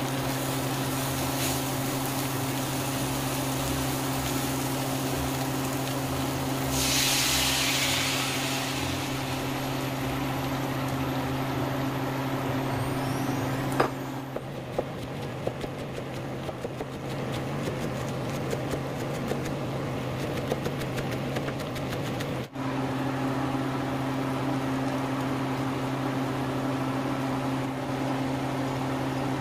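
Whole shrimp sizzling in a frying pan over a steady low hum, with a louder surge of hissing about a quarter of the way in. Around the middle a silicone spatula stirs the shrimp, adding a sharp click and a run of small scraping ticks.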